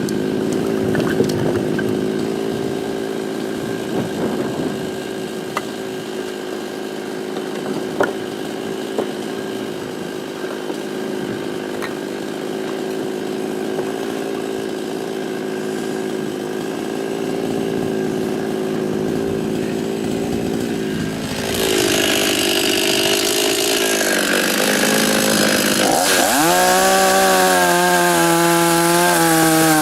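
52cc two-stroke chainsaw with a 20-inch bar running steadily, then about two-thirds of the way through it turns suddenly louder as it cuts into willow logs. Near the end the engine pitch dips under the load and climbs back to a high, steady full-throttle run.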